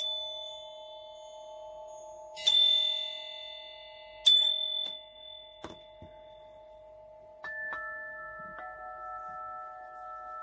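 Meditation music: bell-like chime tones struck three times in the first half, each ringing out and slowly fading over a steady held drone. Softer sustained notes come in near the end.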